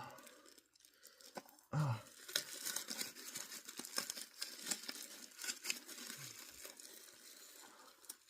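Packaging being torn and crinkled open by hand, an irregular run of crackling rips that starts about two seconds in.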